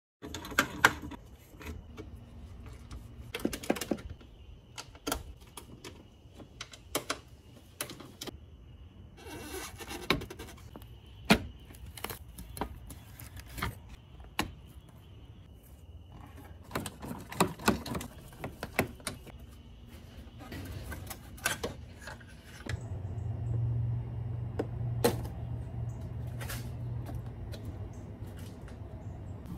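Irregular clicks, taps and rattles of hand tools, bolts and plastic clips as a car's plastic radiator cover panel is unbolted and pried loose. A low hum comes in about two-thirds of the way through.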